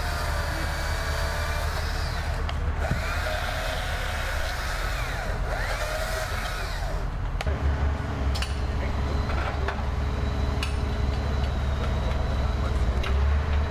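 An engine running steadily with a low drone. A few sharp clicks come in the second half.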